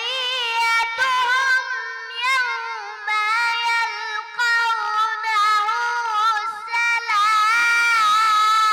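A child's voice reciting the Quran in a melodic, chanted style, holding long drawn-out notes with slow ornamented turns in pitch.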